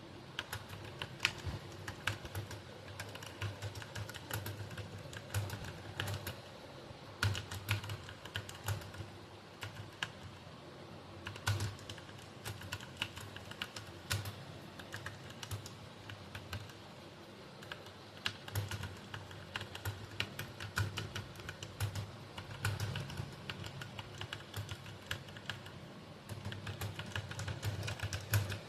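Fast, continuous typing on a computer keyboard: a dense, uneven run of key clicks with occasional louder strokes.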